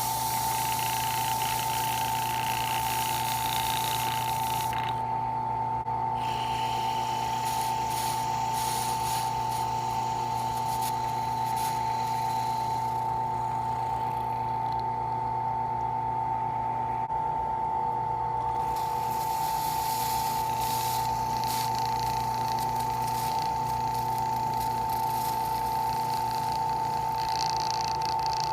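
Electric drill motor running with a steady, unchanging whine. A hissing, scraping noise comes and goes over it as the hot bit works into the material, dropping away twice.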